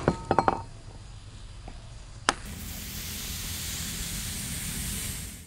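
Glass shards of a shattered cola bottle clinking and settling in the first half-second, with one more tick a little past two seconds in. Then a steady hiss builds and holds: the hot heater-element coil sizzling in the spilled cola.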